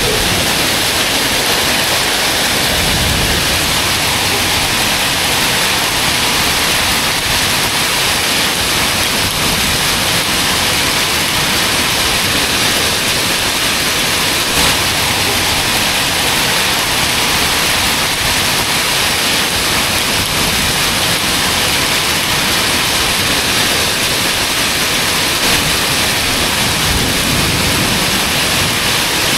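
Torrential downpour of rain mixed with hail, pouring steadily onto pavement and parked vehicles, with a brief low rumble about three seconds in.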